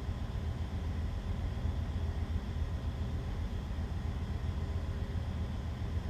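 Steady low machinery rumble with a faint hiss, even throughout and with no distinct knocks or clicks.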